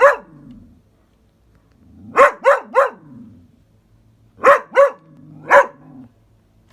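Dog barking in short, sharp barks: one bark, then a quick run of three about two seconds in, then three more about four and a half seconds in.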